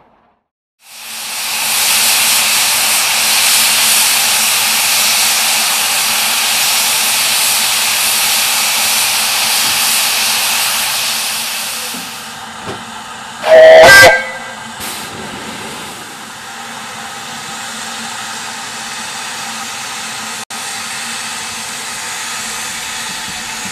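Narrow-gauge steam locomotive letting off steam in a loud, steady hiss for about ten seconds. It then gives one short, loud blast on its steam whistle about halfway through. The engine then stands quietly.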